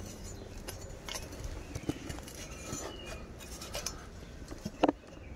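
Light metallic clinks and scuffs of climbing gear against steel River's Edge climbing sticks as a climber steps up the tree, with one sharper knock near the end.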